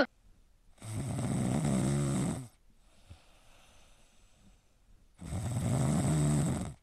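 A sleeping kitten snoring: two long, low snores, the first about a second in and the second near the end, each lasting about a second and a half.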